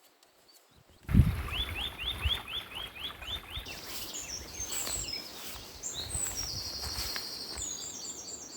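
A thump about a second in, then woodland birds singing over a steady hiss: a run of quick rising chirps, followed by higher, faster trills.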